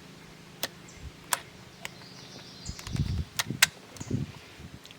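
Scattered sharp clicks and a few dull knocks from the chainsaw being handled, with a short run of knocks about three to four seconds in.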